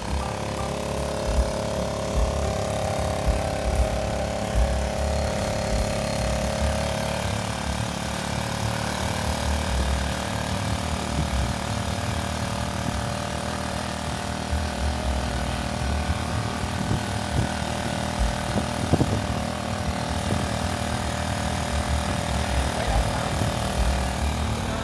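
Horizontal single-cylinder diesel engine of a homemade mini cargo tractor running steadily as the loaded vehicle drives along, with a low, even chugging.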